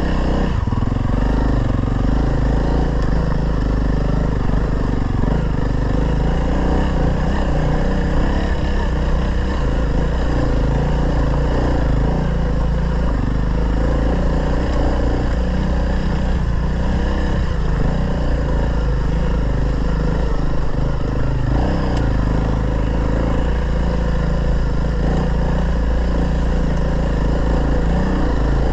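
Honda CRF300L's single-cylinder engine running steadily under load on a steep, rocky off-road climb.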